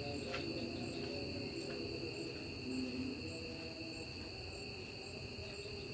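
Night insects, crickets, trilling steadily on two high pitches at once, with a fainter, higher note pulsing at an even rhythm over them. A few soft clicks are heard, one just after the start and another about two seconds in.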